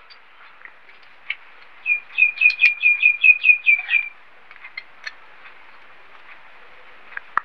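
A small bird chirping a rapid run of about a dozen short, repeated notes for about two seconds, with a few light clicks before and after.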